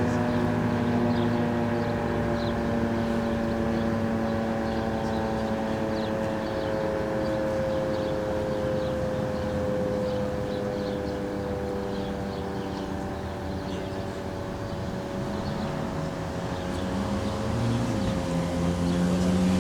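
Sentry 15V2T dual-tone outdoor warning siren sounding the steady Full Alert signal, its chord of tones drifting slightly lower in pitch while the level swells and dips. A lower drone rises in near the end.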